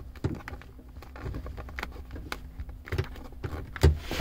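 Handling noise: scattered light clicks and taps, with a few soft knocks, the loudest near the end.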